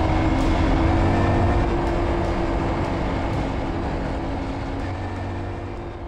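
Small motorcycle's single-cylinder engine running steadily, gradually fading out.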